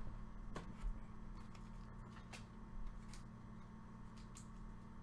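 Faint, scattered clicks and light slides of trading cards being handled and flipped through by hand, over a steady low hum.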